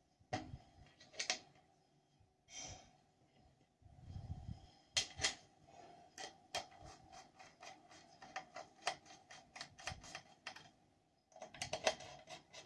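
Light, irregular clicks and ticks as a carbon-fibre glider's wing and fuselage are handled, sparse at first, then several a second in the second half and thickest near the end.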